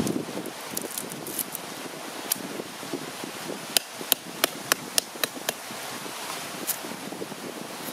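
A large knife chopping on a round wooden stump used as a chopping block: a quick run of about seven sharp knocks, three to four a second, a little past halfway, with a few lighter taps before it, over steady background noise.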